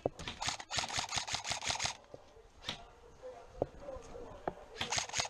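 Airsoft rifle firing: a rapid burst of evenly spaced mechanical clacks lasting under two seconds, three single shots, then another rapid burst starting near the end.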